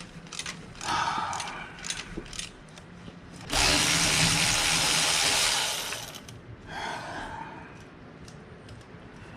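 A handheld power tool runs in short bursts about a second in and again near seven seconds, with one longer, louder run of about two and a half seconds in the middle, working a tight, seized exhaust manifold bolt.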